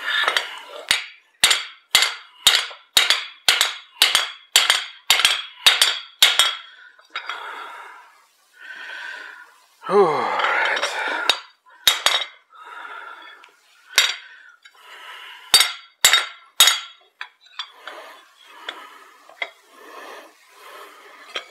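Hammer blows on steel at the anvil while forging an axe head, each strike ringing briefly: about two or three blows a second for the first six seconds, then a few scattered blows. A short falling scrape comes about ten seconds in.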